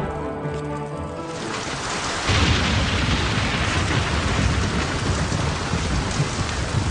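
Music fades in the first second and a half; then, from about two seconds in, a forge fire of glowing coals burns with a loud, steady rushing noise.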